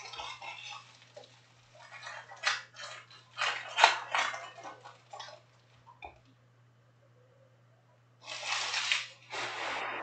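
Foil trading-card pack wrappers crinkling and cards being handled and stacked, in short crackling bursts for the first five seconds or so. After a quiet gap there is a longer, denser rustle near the end.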